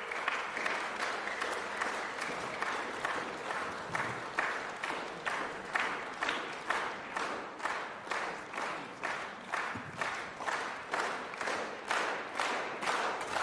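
Audience applauding after the bells stop, the clapping falling into rhythmic unison at about two claps a second.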